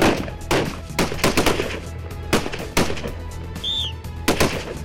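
A string of rifle shots at irregular intervals, some in quick pairs, each trailing off in a short echo.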